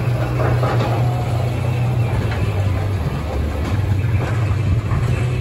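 Steady low mechanical rumble, even in level.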